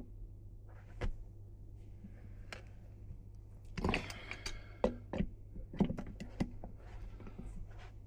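Metal tools knocking and clattering against pipe fittings during pipework on a chilled-water pump, with a burst of clatter and a short metallic ring about four seconds in and a few more knocks after it. A steady low machinery hum runs underneath.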